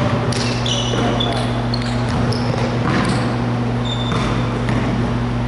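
Sneakers squeaking on a hardwood gym floor and a basketball bouncing a few times, in a large echoing gym with a steady low hum.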